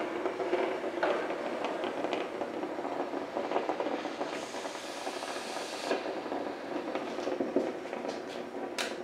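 Steam hissing from a wooden steam box used for bending wood, with a stronger, brighter burst of hiss for about a second and a half some four seconds in. Scattered light knocks and clicks come from the board and box being handled.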